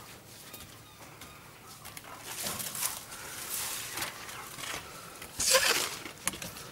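Hen feeding on a banana plant's stem: short, scratchy bursts of rustling and tearing as it pecks and pulls at the fibres and dry leaves, about two, three and a half, and five and a half seconds in, the last the loudest.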